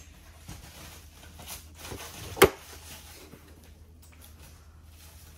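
Hard plastic carrying case of an annular cutter set being closed, shutting with one sharp click about two and a half seconds in, amid light handling rustles.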